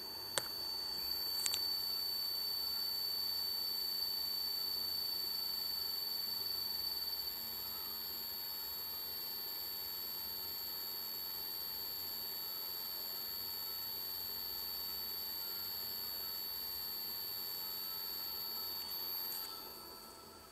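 Hitachi Travelstar 5K250 120 GB 2.5-inch laptop hard drive giving off a steady high-pitched tone that cuts off about a second before the end, a sign the drive is dying. Two sharp clicks come about half a second and a second and a half in.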